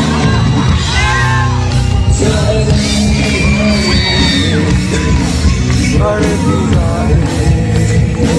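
Live pop concert heard from within the audience: a male singer singing with the band over steady backing music, with fans shouting and yelling in the hall.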